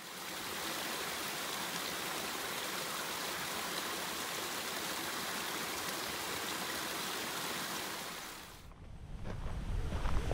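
Small waterfall splashing down a rock face, a steady even rush of falling water. It fades out about eight seconds in, and a low rumble rises at the very end.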